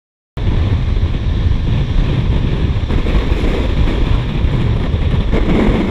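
Rushing wind buffeting the microphone of a camera held out of a moving train's window, over the low rumble of the train. It cuts in abruptly just after the start and stays loud and steady.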